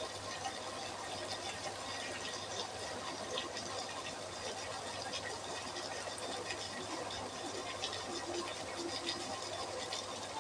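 Chicken masala simmering in a pot on the stove: a steady sizzling hiss dotted with small crackles and pops, over a low steady hum.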